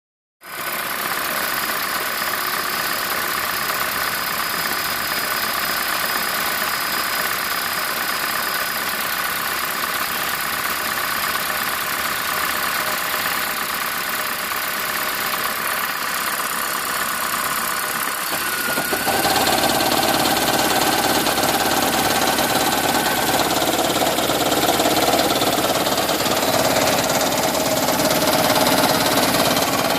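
2010 Toyota Prius's 1.8-litre four-cylinder engine running with a knocking noise likened to a raptor's call. The sound grows louder and fuller about nineteen seconds in.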